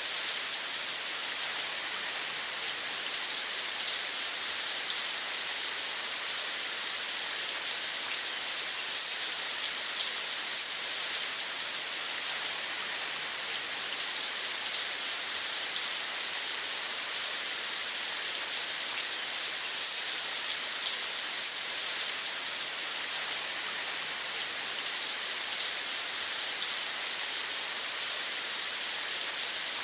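Steady rain falling, an even hiss full of fine drop patter, with no change in strength.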